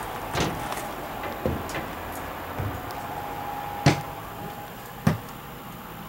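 Footsteps climbing a camper's folding metal entry steps and onto the floor inside, about one knock a second over a steady hum, the last two knocks the sharpest and loudest.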